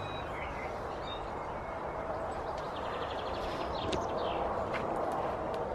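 Outdoor garden ambience: birds chirping now and then, with a short rapid trill a little after halfway, over a steady background hiss. A faint steady hum joins about halfway, and there are a couple of soft clicks near the end.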